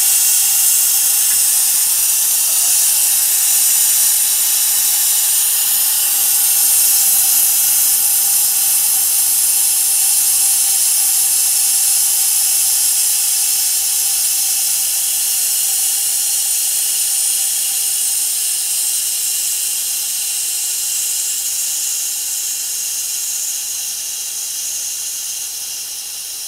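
Compressed air hissing steadily out of the open drain of an inline moisture filter bowl, blowing the water it has trapped out into a tin can. The hiss slowly weakens over the last several seconds.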